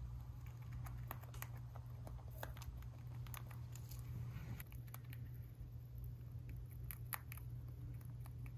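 Rabbit crunching feed pellets taken from a hand: an irregular run of small, crisp clicks over a steady low hum.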